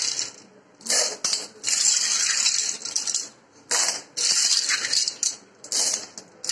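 Handfuls of wet clams lifted out of a pot of water and dropped into a wok of hot oil, splashing and sizzling in repeated bursts of a second or so each.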